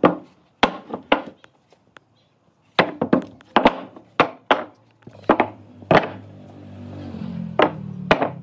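Repeated sharp blows of a tool striking wood, about fifteen knocks in uneven bursts with a short pause about two seconds in.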